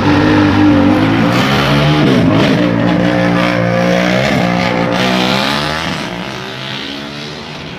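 Motor vehicle engine running with a steady pitch that dips and rises again twice, then fades out near the end.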